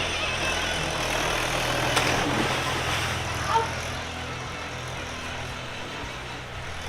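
An engine running steadily with a low hum, under a continuous hiss, with a single short click about two seconds in.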